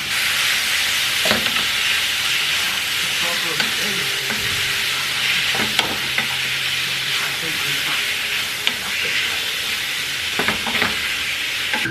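Food sizzling in a hot frying pan, a steady hiss with a few light clicks of a utensil in the pan.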